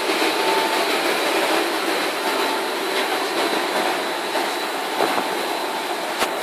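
Machinery of a puffed corn snack processing line running steadily: a dense, even mechanical noise with a faint high whine. There is one sharp click near the end.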